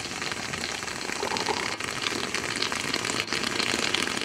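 Stovetop moka pot brewing: coffee forced up through the central spout, sputtering and gurgling with a dense crackling hiss as steam pushes it out.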